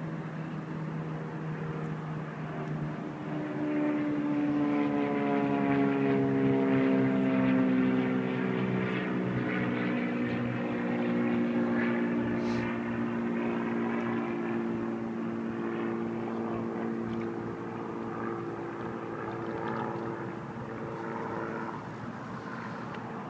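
Drone of a passing engine, most likely a propeller airplane overhead. It swells about four seconds in, its pitch slides slowly downward as it goes by, and then it slowly fades.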